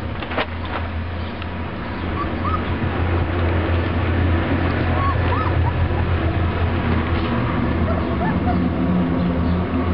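Three-week-old puppies giving short, high squeaks and whimpers, in pairs about two, five and eight and a half seconds in, over a loud, steady low rumble and rustling noise.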